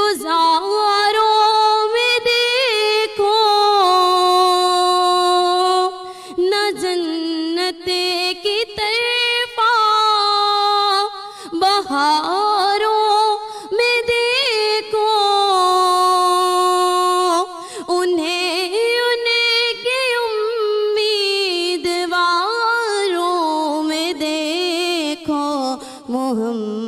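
A woman singing a naat solo into a microphone, in long held notes that bend and waver in ornamented runs, with short breaths between phrases and no instrument heard.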